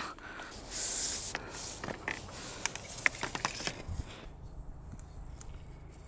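Lengths of PVC conduit being handled in a dirt trench: a brief scuff about a second in, then a run of light clicks and knocks of plastic and grit for a couple of seconds before it goes quieter.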